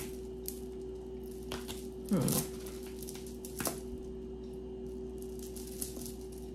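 Yellow acrylic bead necklace being lifted and handled, its plastic beads giving a few light clicks over a steady low hum. About two seconds in, a short voice-like sound falls in pitch and is the loudest thing heard.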